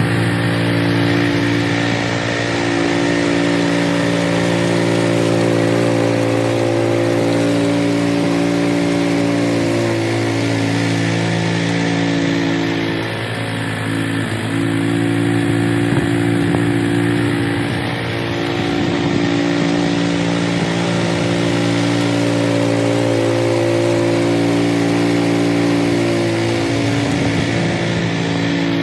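Cub Cadet 3X 30 HD three-stage snowblower's single-cylinder engine running steadily at working speed, its pitch sagging briefly several times as it comes under load.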